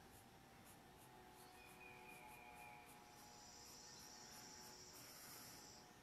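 Near silence: faint pencil strokes on paper, with a faint high, steady trill starting about halfway through.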